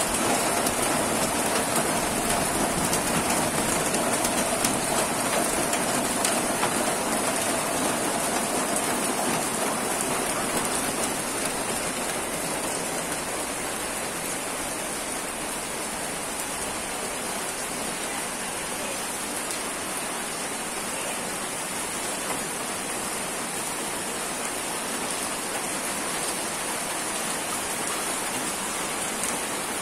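Steady rain falling, a little louder during the first ten seconds or so.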